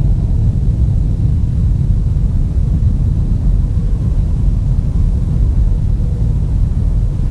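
Loud, steady low rumble with no distinct strikes or tones.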